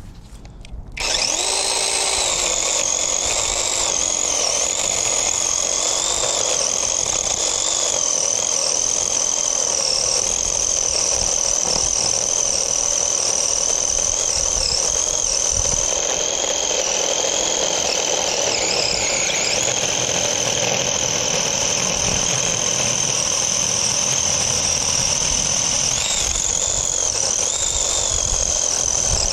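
Seesii battery-powered chainsaw starting up about a second in and running with a steady high whine while cutting through a log of about six inches. Its pitch dips and wavers now and then as the chain takes load in the wood.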